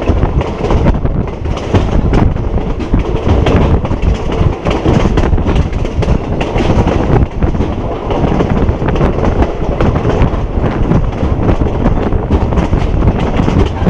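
Passenger train running along the line, heard through an open carriage window: a steady loud rumble of wheels on the rails with a constant rattle and clatter.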